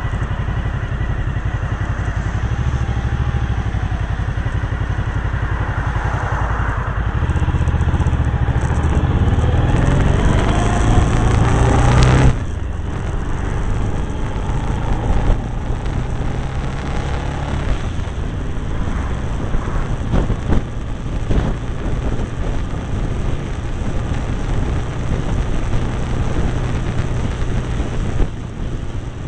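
Cagiva Navigator's V-twin motorcycle engine under way, its note rising for several seconds as the bike accelerates, then dropping abruptly about twelve seconds in, after which it runs more steadily at cruising speed.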